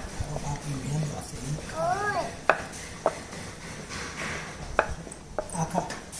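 Irregular sharp knocks and taps of kitchen utensils on a work surface, several in a few seconds, during ghughra dough preparation. Brief murmuring voices run underneath.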